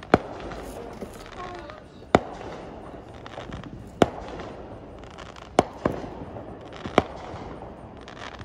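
Fireworks going off: about six sharp bangs at irregular intervals, a second or two apart, over a steady background hiss.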